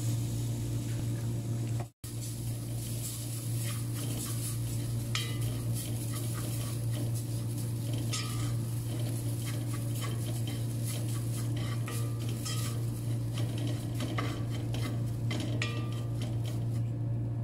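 Wooden spatula stirring and scraping gram flour in a pan of hot oil, with light sizzling and scattered short scrapes against the pan. A steady low hum runs underneath.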